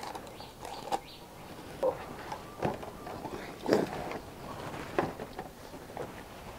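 Handling sounds of a whole cooked chicken being tipped and shaken out of a charred bamboo tube onto a banana leaf: scattered knocks of bamboo, rustling and soft thuds. A crinkle of aluminium foil being pulled off the tube's end comes near the start. The loudest thump comes a little past the middle.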